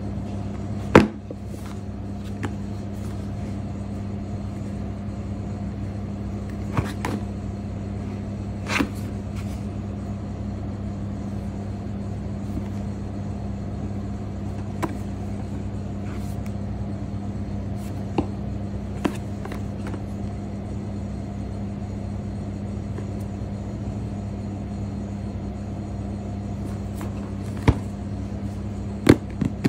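A steady low hum at one fixed pitch, with a few scattered soft taps and clicks from hands handling a cardboard phone box.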